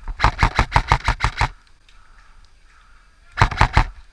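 Airsoft rifle firing a quick string of sharp shots, about eight in a second and a half, then a short burst of three more near the end.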